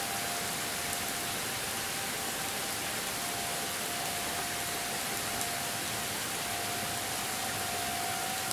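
Distant Federal Signal 2001-series tornado sirens sounding a steady single-pitch tone that swells and fades, over a steady hiss of rain.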